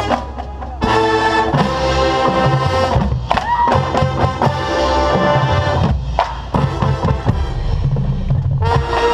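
Marching band brass section and drum line playing a field show: loud, full brass chords with drum hits, in short phrases broken by brief pauses. The last chord fades near the end.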